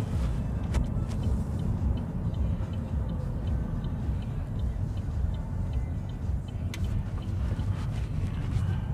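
Steady low rumble of engine and tyre noise heard inside a moving car's cabin, with a few faint clicks.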